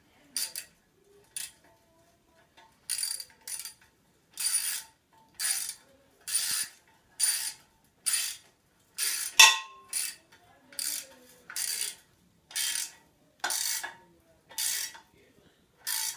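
Socket ratchet wrench clicking in short strokes, about one a second, as it tightens the nut on a scooter brake bolt, with one louder knock about halfway through.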